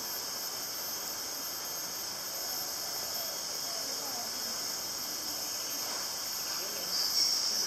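Steady high-pitched buzzing of a tropical forest insect chorus, which grows louder near the end.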